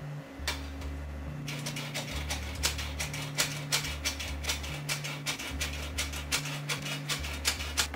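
Metal hand-crank flour sifter being turned over a bowl, its crank and agitator wires giving a fast, even rattling click, about five a second, as flour is sifted through the mesh. The clicking starts about a second and a half in.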